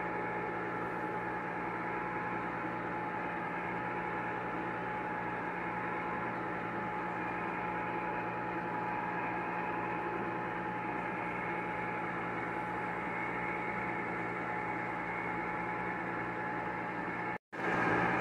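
Cuisinart electric ice cream maker running, its motor turning the paddle to churn the vanilla ice cream base: a steady, even hum. It cuts out for an instant near the end and comes back a little louder.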